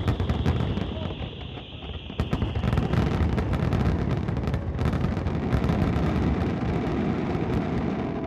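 Fireworks display: a dense, continuous barrage of bangs and crackling bursts over a low rumble, with a high whistle during the first two seconds.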